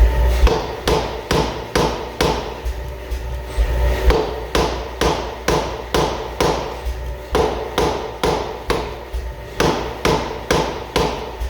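Blacksmith's hammer striking hot steel on an anvil in an even run of about two blows a second, forge-welding the cracked axe head, with a steady hum underneath.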